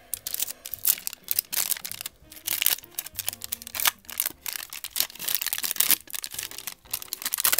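Foil wrapper of a trading-card pack being torn open and crinkled by hand: a rapid, irregular run of crackles and rustles.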